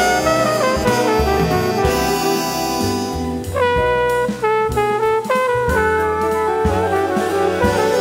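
Jazz big band playing an instrumental passage: trumpets, trombones and saxophones in held chords that change every second or so, over double bass and drums.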